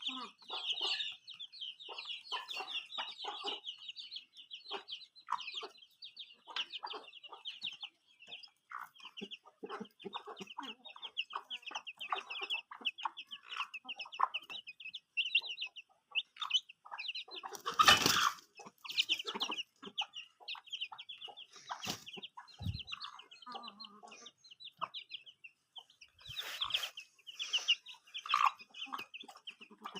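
A hen clucking among her chicks, which peep rapidly and without a break. One brief, louder noise comes about eighteen seconds in.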